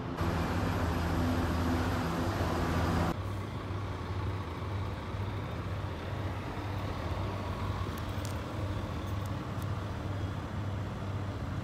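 Engine idling steadily with a low, even throb. It is louder for about the first three seconds, then drops suddenly and idles on more quietly.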